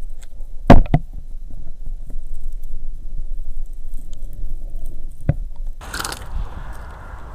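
Muffled low rumble of water heard through an underwater camera's housing, with sharp knocks about a second in and again near five seconds. Near the end it changes to a loud rush of hiss that settles into steadier hiss as the camera comes out of the water.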